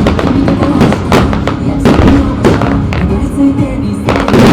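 Aerial fireworks shells bursting in quick succession, sharp bangs about once or twice a second with a dense cluster near the end, over music playing throughout.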